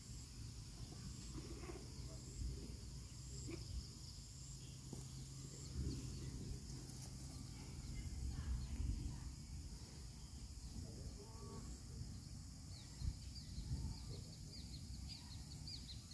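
Faint outdoor garden ambience: a steady high-pitched hum and a low rumble, with a few short chirps near the end.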